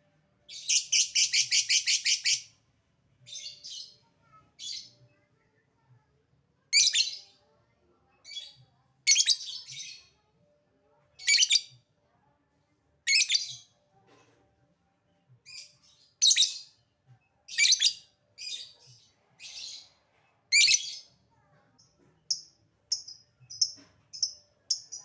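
Lovebird calling: a rapid chattering trill (the 'ngekek' call) lasting nearly two seconds shortly after the start, then loud shrill single calls every second or two, and a run of short quick high notes near the end.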